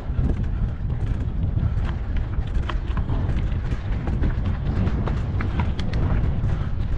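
Riding a mountain bike on a rough trail: wind buffets the microphone as a steady low rumble, with scattered clicks and rattles from the tyres and bike on stony ground.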